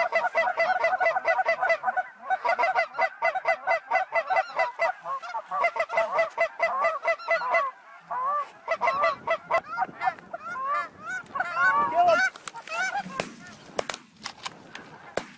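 Geese calling: a dense chorus of rapid, overlapping honks that thins out about halfway through to separate single honks. About three-quarters of the way in come several shotgun shots in quick succession.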